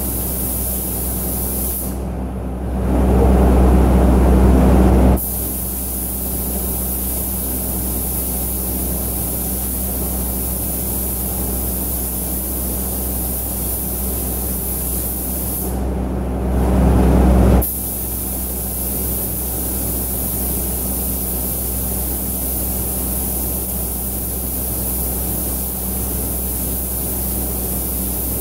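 Compressed-air paint spray gun hissing steadily in a spray booth, over the low drone of the booth's extraction fans. Twice, a few seconds in and again just past the middle, a louder, deeper rush takes over briefly, about two and a half seconds and about a second long.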